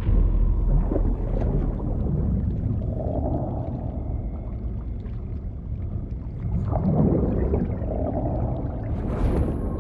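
Muffled underwater ambience from a diving scene: a deep, continuous rumble with slow, swelling tones and gurgling water. A brighter rushing sound comes near the end.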